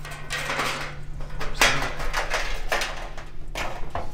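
A steel broadhead and carbon arrow being worked back out through a hole in a 17-gauge steel plate: a run of irregular metal scrapes and clunks, the loudest about a second and a half in.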